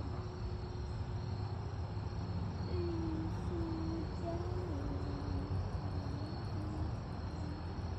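Crickets trilling in a steady, unbroken high chorus over a low outdoor rumble. From about three seconds in, a faint low tone steps down in pitch a few times.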